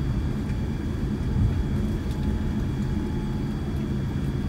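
Cabin noise of a Boeing 787-9 rolling along the runway after touchdown, spoilers raised: a steady low rumble of engines and landing gear, heard from inside the cabin.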